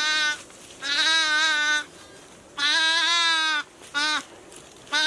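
Sheep bleating over and over: loud calls about a second long, one after another, with a short one near the end.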